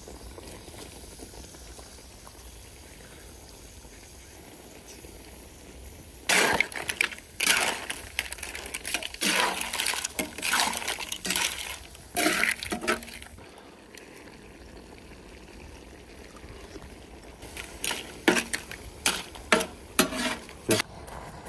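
Seafood pasta sauce sizzling and bubbling on a wide round griddle pan, with metal spatulas scraping and clattering against the pan as linguine is tossed through the clams and scallops. The clatter comes in two spells, from about six seconds in to about thirteen and again near the end, over the steady sizzle.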